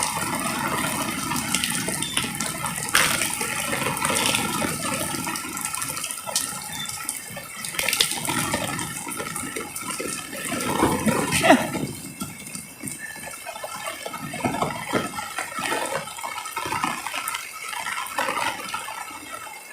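Heavy rain falling and water running and splashing, with scattered sharp drip ticks; it gets quieter after about twelve seconds.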